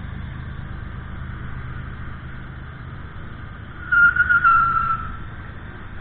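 Union Pacific manifest freight train rolling past with a steady low rumble of passing freight cars. About four seconds in, a loud, high squeal lasts about a second, falling slightly in pitch.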